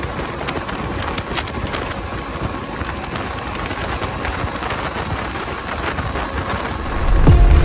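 Steady rushing wind and road noise from a commuter motorcycle riding at speed, with scattered crackles. Music comes in near the end.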